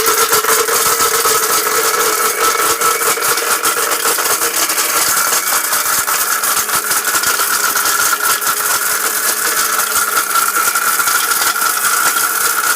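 Miyako 2000-watt heavy-duty blender motor running steadily at speed, grinding hard dried turmeric in its jar.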